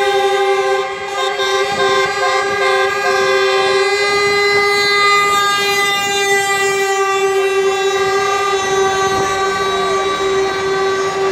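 A truck's air horn held in one long, unbroken blast, steady in pitch.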